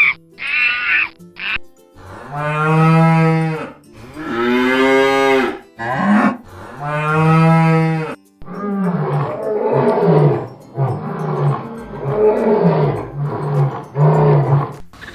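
Cattle mooing: three long, drawn-out moos, then a run of shorter calls that fall in pitch. A few short, high chirping calls come at the very start.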